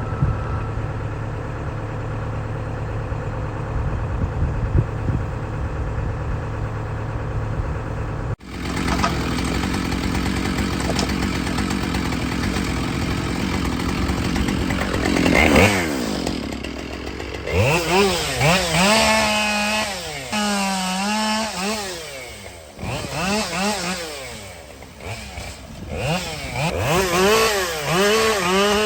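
Husqvarna 572 XP two-stroke chainsaw bucking dirty pulpwood. A steady engine hum is followed, after an abrupt break about eight seconds in, by the saw at full throttle, its pitch repeatedly dipping and rising as it runs through cuts and revs between them.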